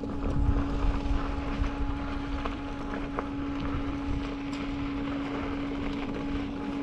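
Electric unicycle's hub motor whining at one steady pitch while riding, over a low rumble of wind on the microphone that is strongest in the first second or so.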